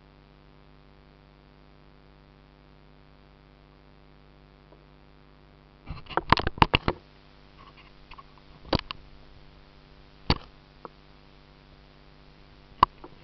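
A faint steady hum, then from about six seconds in a quick run of sharp knocks, followed by single knocks every second or two: hard contact on the kayak the camera is attached to.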